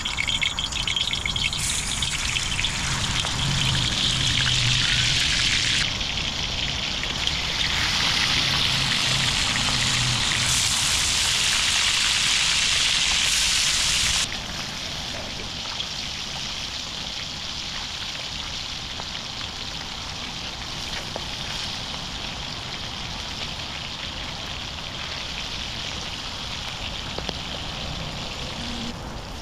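Water running and pouring in a steady loud stream that shifts a few times, then drops to a quieter, steady flow about halfway through.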